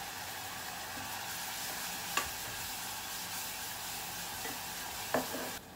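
Soy sauce mixture sizzling as it hits the hot frying oil and fried aromatics in a pot and is stirred, a steady hiss. Two sharp knocks stand out, one about two seconds in and a louder one near the end, and the sizzle drops away just before the end.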